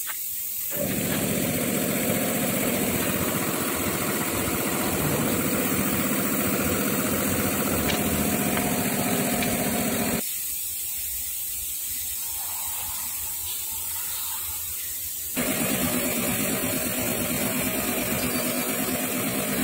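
A machine's motor running steadily with a mechanical drone, cut in abrupt segments; it drops to a quieter drone about ten seconds in and comes back up about five seconds later.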